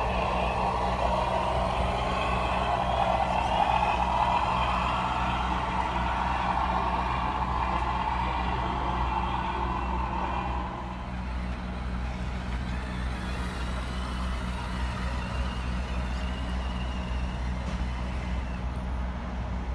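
Radio-controlled model trucks driving on a dirt track: a steady low engine-like drone throughout, with a higher motor whine over it that fades about ten seconds in.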